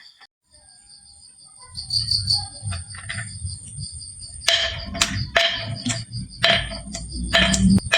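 Marbles rolling down a wooden marble-run slope with a low rumble, and a rapid series of clacks about four and a half seconds in as they knock along and drop.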